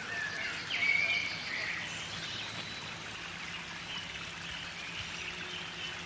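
Small birds chirping and whistling in short high calls, loudest about a second in, over a steady background hiss.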